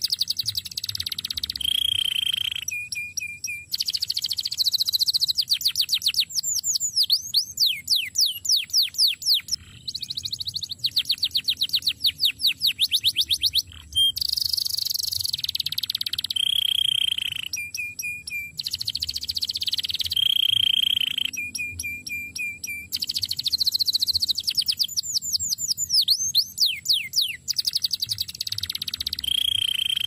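Male domestic canary singing a long song: fast trills of rapid down-sweeping notes, each run ending in a held whistle and a few lower notes, the pattern coming round again every few seconds.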